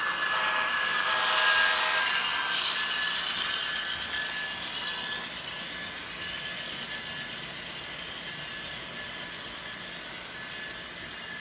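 HO scale model train running past at close range: the locomotives pass first, loudest about a second or two in, then the rolling of the double-stack container cars slowly fades as they go by, with a thin steady high whine throughout.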